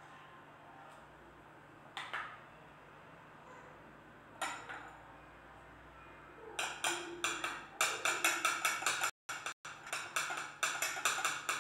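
A spoon clinking and scraping against a bowl of melted chocolate: two single knocks, then from about six and a half seconds in a quick run of repeated clinks as the chocolate is stirred and scooped.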